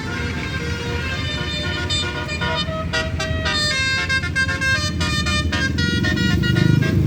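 A bus's Basuri telolet horn playing a quick tune of changing notes, growing busier and louder about two seconds in. The bus's engine rumbles underneath and gets louder near the end.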